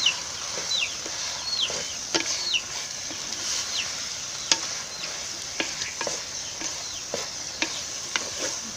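A ladle stirring mushroom masala frying in a clay pot, with a steady sizzle and irregular clicks and scrapes of the ladle against the pot.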